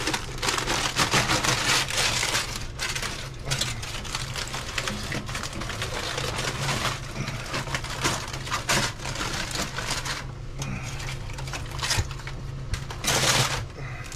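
Aluminium foil crinkling and rustling as it is torn open from around smoked pork, loud at times and quieter in between.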